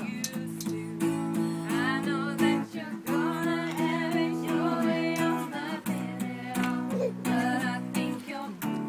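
Acoustic guitar strumming chords, with voices singing a melody over it.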